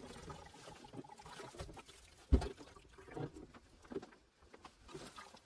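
Water dribbling and pattering from a just-disconnected water-heater supply hose into a plastic bucket, with light handling knocks and one sharp knock a little over two seconds in.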